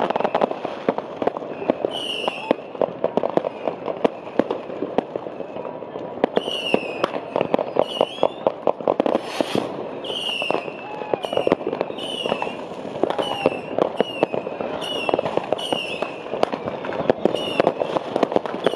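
Many fireworks and firecrackers going off at once: a dense, irregular run of bangs and crackles. From about six seconds in, short falling whistles sound over it again and again, roughly once a second.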